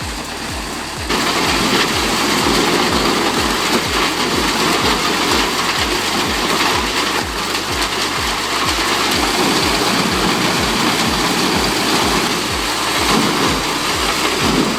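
Truck-mounted wood chipper running and chipping wood: a loud, dense noise over a steady low engine pulse. It gets louder about a second in.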